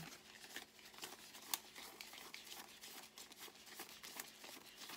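A stack of British polymer banknotes being counted through by hand: a quick run of crisp crinkles and flicks, with one sharper snap about a second and a half in.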